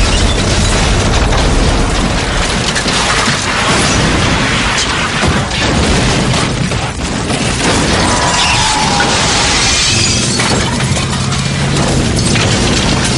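Vehicle explosion and fireball: a continuous loud rumbling blast with debris crashing and shattering through it. A low steady hum comes in near the end.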